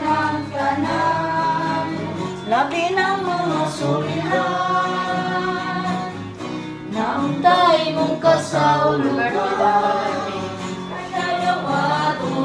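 A song with voices singing over acoustic guitar, in phrases with short breaks between them.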